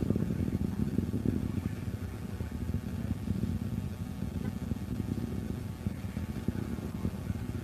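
Distant rocket launch: an Atlas V 551 climbing under its RD-180 main engine and five solid rocket motors, heard as a steady deep rumble with a crackle running through it.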